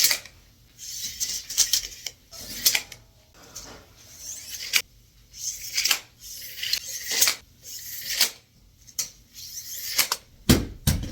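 Tape measure's metal bottle-opener edge clicking and scraping against a beer bottle cap in repeated tries to pry it off, the cap not coming loose. Louder knocks come near the end.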